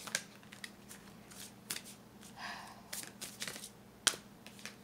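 Tarot cards being handled and turned back the right way up: a series of light card clicks and flicks, a short swish of card sliding on card about halfway through, and one sharp snap near the end.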